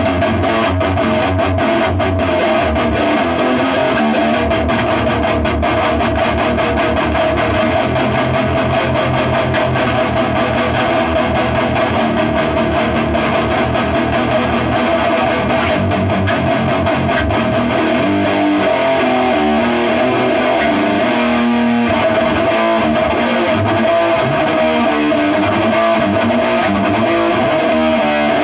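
Electric guitar played continuously through a Blue Voodoo amp into a cabinet fitted with two Eminence 12-216 speakers, for a test of the new speakers' tone.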